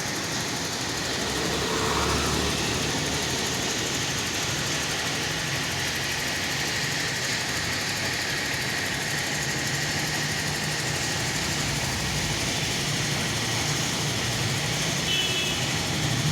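Steady motor-vehicle noise: an engine running with a low hum under an even rushing noise.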